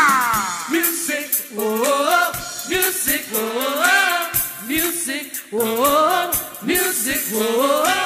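Live tropical band music: a melody line in short rising phrases, repeated about every second and a half, over a steady drum beat.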